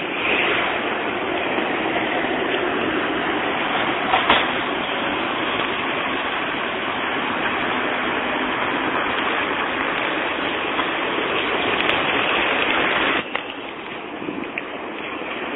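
Tram running along a street track, heard from on board: a steady rolling rumble and hiss. There is a brief sharp clank about four seconds in, and the noise drops suddenly about thirteen seconds in.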